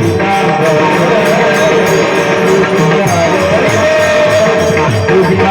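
Marathi panchapadi bhajan music: a wavering melody line over steady, evenly repeating jingling percussion.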